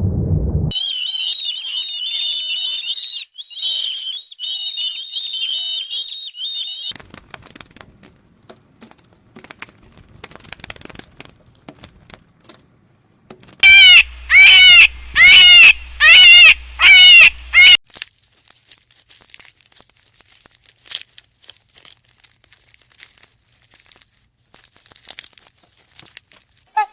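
Birds calling: a stretch of high, rapid chirping, then rustling and clicking, then a run of six loud arching calls in quick succession, followed by more faint clicking and rustling.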